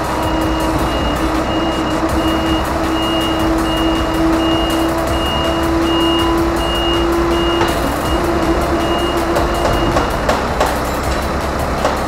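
Truck-mounted crash cushion's warning beeper sounding in a regular on-off pattern while the cushion is worked from its new remote, over a steady hum and the truck's low engine rumble. The beeping and the hum stop together about ten seconds in, as the cushion finishes its movement.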